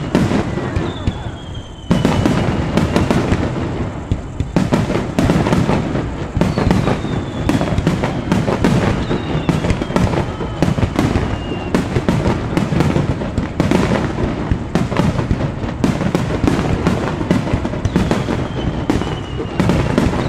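Aerial firework shells bursting in a dense, continuous barrage of bangs during a fireworks finale. There is a brief lull in the first two seconds, then the barrage resumes sharply. A few falling whistling tones sound over the bursts.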